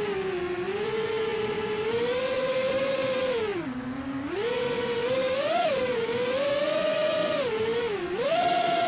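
FPV racing drone's electric motors and propellers whining, the pitch rising and falling with the throttle, with a deep dip about four seconds in before it climbs again.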